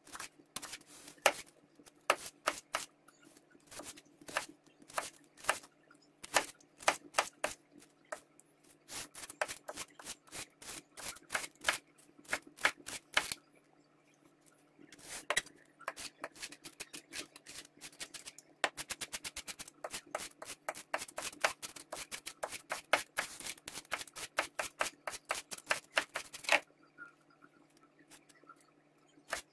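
Misen chef's knife chopping an onion on a cutting board: sharp knocks of the blade on the board, slower single cuts at first, then a fast run of rapid chops later on as the onion is minced.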